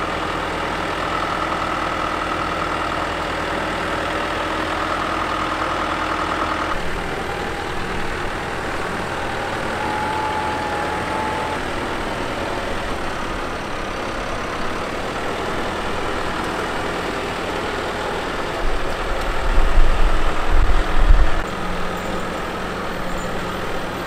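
John Deere 6130R tractor and trailed AVR potato harvester running steadily at work, engine and harvester machinery together, with a steady whine for the first several seconds. Near the end comes a short burst of loud low thumps.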